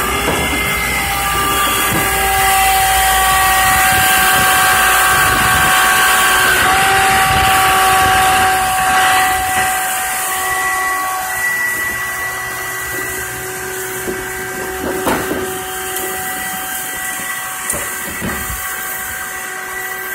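Garbage truck running at a standstill, its machinery giving several steady whining tones over a hiss. The sound is louder for the first half, then eases off with a few short knocks near the end.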